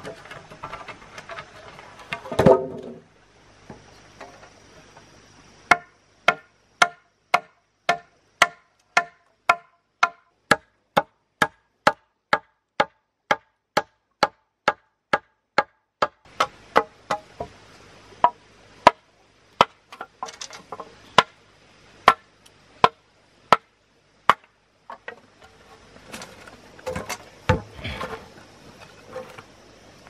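Large knife chopping into a log, sharp even strokes about two a second with a slight ring to the early ones. A single heavy thump comes about two seconds in, and a few looser knocks near the end.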